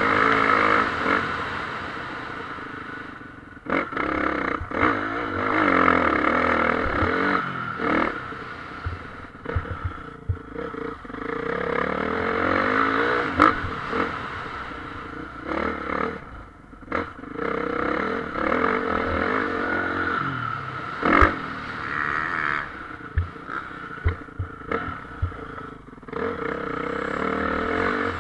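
Motocross bikes racing, engines revving up and down with the pitch rising and falling over and over, and sharp knocks now and then.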